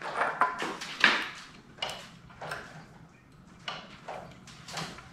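Irregular clacks and knocks of garment rack parts being handled as a round wooden dowel is fitted into the frame.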